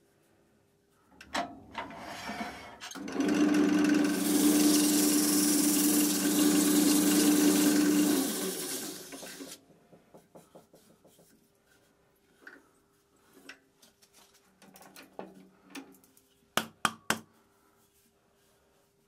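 Wood lathe motor running for about five seconds with a steady hum under a loud rushing hiss, the hum cutting off and the hiss dying away soon after. Near the end, a few sharp knocks as the oak blank is handled at the lathe.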